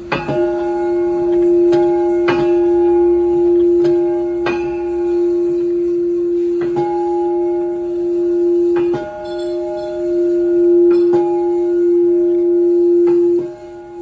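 Large cast bronze temple bell of about 500 kg, swung by a hand-turned wheel, its clapper striking it about nine times at uneven intervals of one to two seconds. Each strike renews a long, steady, deep hum with higher overtones, so the ringing never dies away between strokes.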